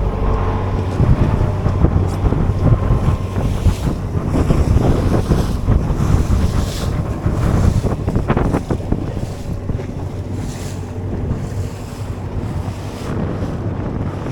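Wind buffeting the microphone on an open boat, with the wash of waves beneath it. A few sharp knocks come about eight seconds in.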